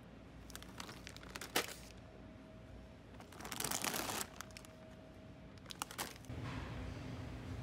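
Foil-lined snack bags crinkling as they are handled: a few sharp crackles, then a longer burst of crinkling about three and a half seconds in as a bag is pulled off the shelf, and more crackles as the bags go into a plastic shopping basket.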